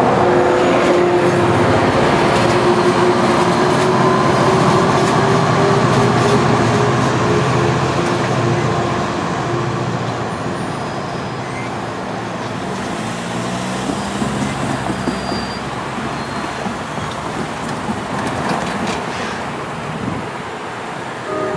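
NJ Transit Coast Line push-pull passenger train running by, with a steady engine hum over the rumble of the cars; it is loudest for the first eight seconds or so, then eases off as the train moves away.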